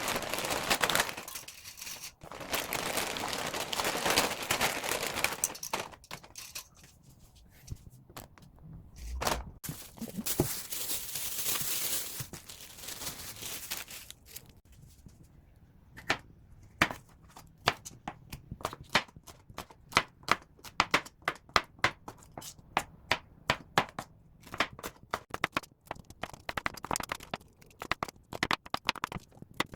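Kitchen food-preparation sounds: two stretches of steady hiss, then a long run of quick, irregular sharp knocks and taps, a few a second.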